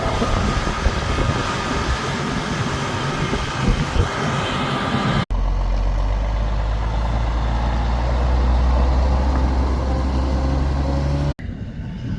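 Heavy harvest machinery engines running, in three shots joined by abrupt cuts about five and eleven seconds in. The middle shot holds a steady, deep engine hum, and the last is quieter.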